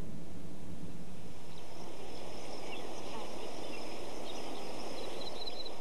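Outdoor ambience: a steady rushing noise with small birds chirping, taking over about a second and a half in from a low hum that fades out.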